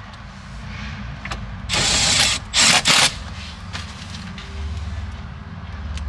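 Cordless Milwaukee Fuel drill-driver running screws into the plastic lower dash trim: one run of about half a second, then two quick short blips as the screw seats.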